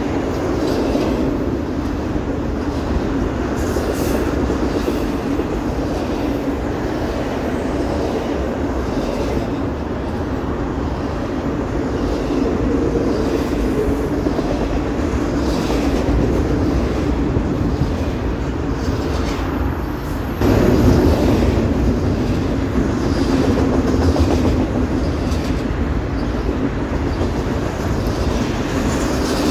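Double-stack intermodal container freight train rolling past: a steady rumble of steel wheels on the rails, with a repeated clickety-clack of wheels over rail joints. It gets a little louder about two-thirds of the way through.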